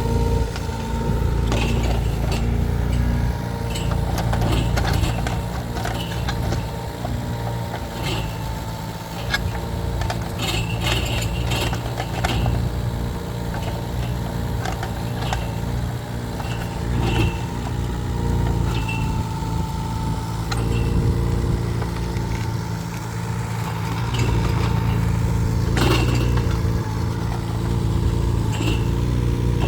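Mini excavator engine running steadily, with scattered knocks and scrapes over it.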